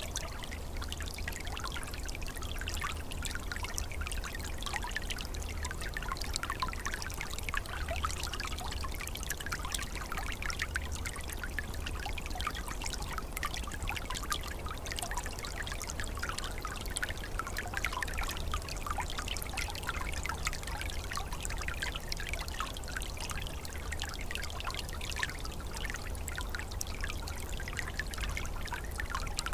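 Small woodland stream flowing steadily, water trickling and gurgling over its bed, with a constant low rumble beneath.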